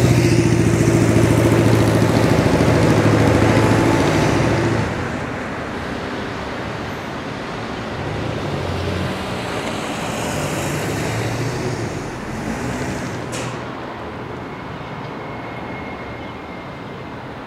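City street traffic. A vehicle engine hums loudly for the first five seconds or so, then it fades to a steadier, quieter wash of passing cars, with one sharp click about thirteen seconds in.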